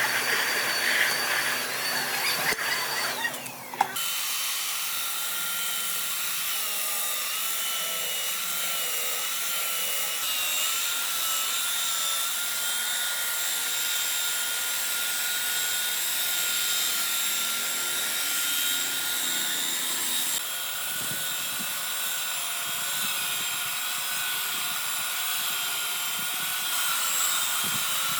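Handheld electric power tool working wood. For the first few seconds there is a rougher, noisier grinding sound; then, from about four seconds in, a steady high motor whine that wavers slightly in pitch.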